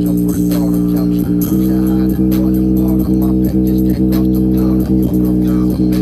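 Bass-heavy music playing through a cheap portable speaker during a bass test: a held low bass note over a steady beat, the bass moving to a new pitch about a second and a half in.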